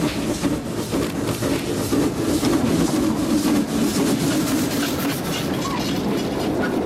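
Working steam locomotive passing at close range, its cylinder cocks blowing off steam with a loud hiss over the exhaust, then wagons rolling past with wheels clacking over the rail joints near the end.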